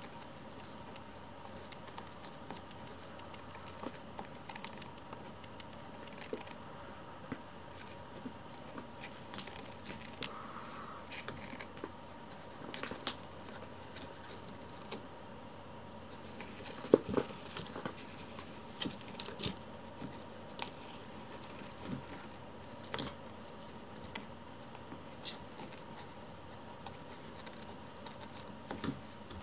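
A kitten gnawing and clawing at a thin wooden desk leg: scattered small scratches, clicks and taps of teeth and claws on the wood over a steady room hiss, with one louder knock a little past the middle.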